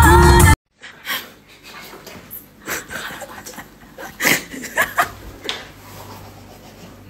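Stifled, breathy giggling in short irregular bursts, kept hushed. Background music cuts off abruptly just before it.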